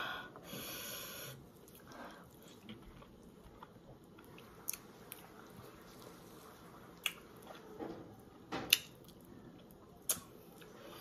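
Close-up mouth sounds of a person eating soft, ripe Marian plum: quiet wet chewing and sucking, broken by a few sharp lip smacks, the loudest about nine seconds in.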